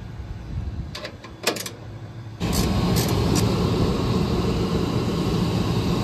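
A few light clicks, then, a bit over two seconds in, an HVAC unit starts up suddenly: a steady loud rushing hum of running fan and motor noise.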